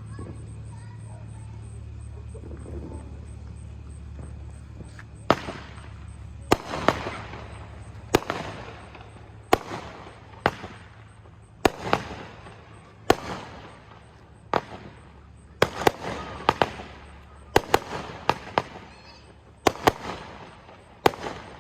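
Consumer fireworks going off in a run of sharp bangs, each followed by a short crackling tail, starting about five seconds in at roughly one a second and coming faster near the end. Before them there is only a steady low hum.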